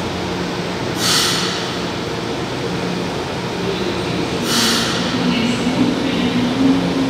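São Paulo Metro subway trains in the station, with a steady low running hum. Two short sharp hisses of air come about a second in and again about four and a half seconds in, and a low whine rises in pitch over the second half.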